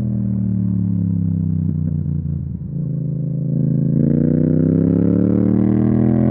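Yamaha MT-07's 689 cc parallel-twin engine through an Akrapovic exhaust. The revs fall off the throttle for the first two and a half seconds, then climb again as the bike accelerates, getting louder from about four seconds in.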